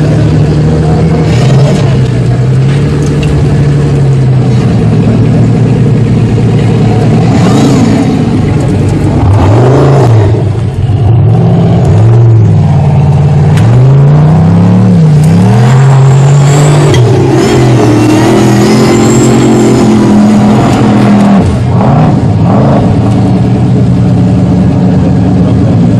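Formula Offroad hill-climb buggy's engine revving hard, its pitch swinging up and down again and again as the throttle is worked on the climb.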